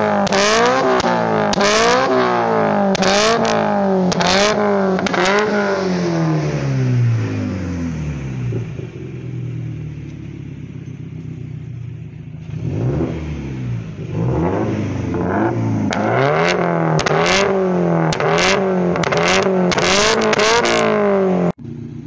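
Tuned Subaru Impreza STI's turbocharged flat-four free-revving in quick blips, about one a second, with sharp crackles from the exhaust as the revs rise, from a crackle map added in a stage 1 tune. It drops back to idle for a few seconds in the middle, then the revving and crackling start again, more pops crowding in near the end.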